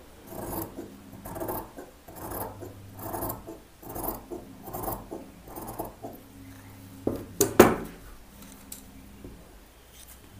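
Tailor's scissors cutting through blouse fabric in a steady series of snips, about one a second, followed by two sharper clicks about seven seconds in.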